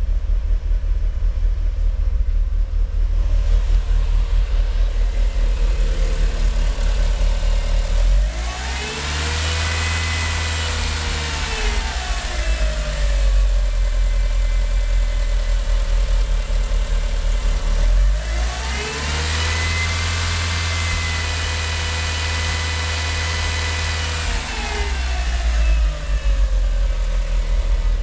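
Mitsubishi Lancer Evolution IX MR's turbocharged 2.0-litre 4G63 four-cylinder idling unevenly, the rough idle the owner has not cured with new spark plugs. Twice the engine is revved up, held for a few seconds and let fall back to idle.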